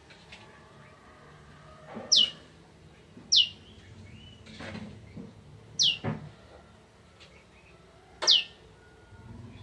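Prenjak (prinia) calling: four short, loud, sharply falling whistled notes spaced a second or more apart, with faint knocks in between.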